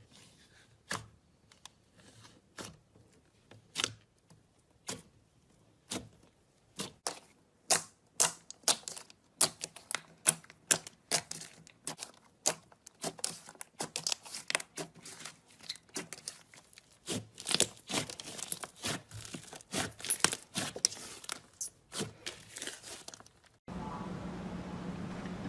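Slime being handled, giving sharp, irregular clicks and pops that come faster through the middle. Near the end the sound cuts suddenly to a steady hiss with a low hum.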